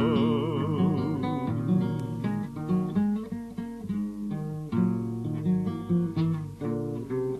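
Acoustic guitar playing a plucked instrumental interlude between verses of a song. The singer's last held note, sung with vibrato, fades out about a second in.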